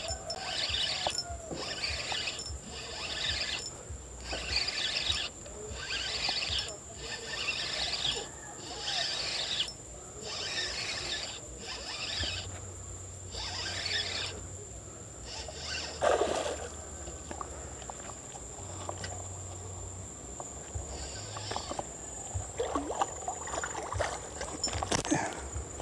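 Spinning reel being cranked to bring in a hooked fish on a bent rod, in rasping bursts of winding about once a second with short pauses between. The winding stops about fifteen seconds in, leaving a sharp click and scattered small knocks and rustles near the end.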